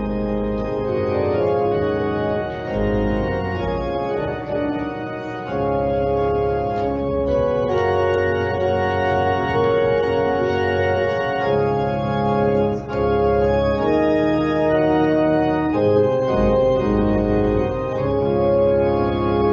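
Organ music: slow, long-held chords that change every second or two over deep sustained bass notes.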